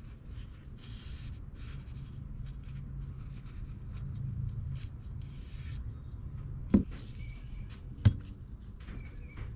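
Engine parts being handled on a workbench: faint light clicks and rubbing, then two sharp knocks about a second apart near the end as parts and a plastic bottle of assembly lube are set down on the bench. A low steady hum runs underneath.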